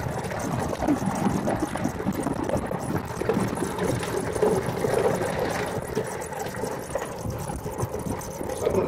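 Golf cart driving over a rough gravel road: a steady rumble with irregular rattling and knocking from the cart's body and tyres.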